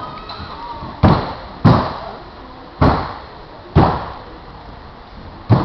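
Five sharp, echoing smacks at an uneven pace from a kung fu performer working through a form.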